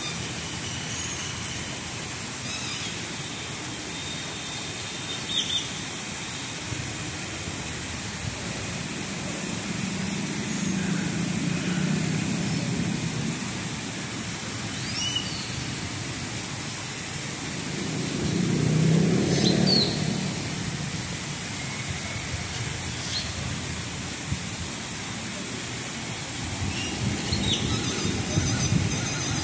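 Outdoor ambience: a steady hiss under a low rumble, like distant traffic, that swells twice, about a third of the way in and again a little past halfway, with scattered short bird chirps.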